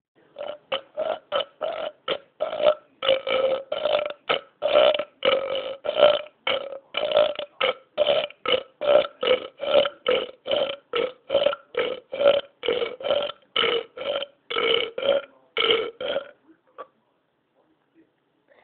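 A man burping over and over: a rapid string of dozens of short, separate burps, about two or three a second, stopping about sixteen seconds in.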